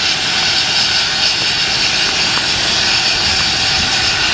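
Helicopter running on the ground with its rotors turning: a steady, loud rush of engine noise and rotor downwash, with wind buffeting the microphone.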